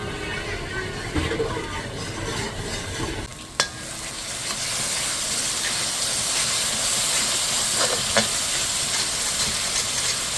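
Curry seasoning and spices sizzling as they fry down in a pot, at the 'bunjay' stage just before hot water is added for the sauce. A sharp knock comes about three and a half seconds in, after which the sizzle grows louder and steady.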